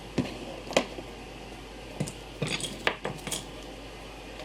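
Small metal parts and tools clinking and knocking against each other and the bench: vice grips, a brass clock wheel and a brass plate being unclamped and put down. About seven short, sharp clinks, spread unevenly with a cluster near the end.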